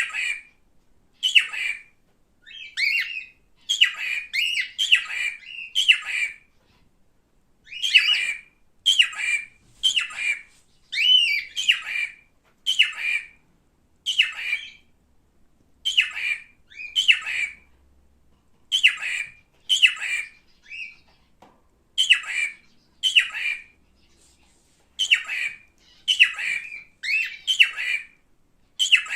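Male cockatiel calling over and over: short, harsh, rising chirps, one to three a second with brief pauses between runs.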